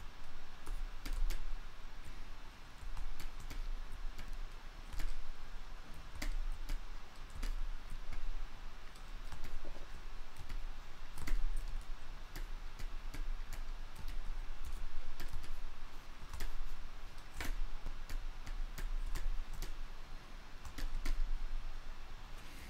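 Scattered, irregular clicks of a computer mouse and keyboard as a digital sculpt is worked on, over a low steady hum.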